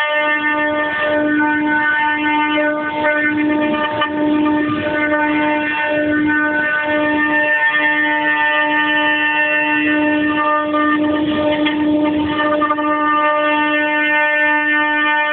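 CNC machine running, its motors giving a steady, loud whine with an unchanging pitch.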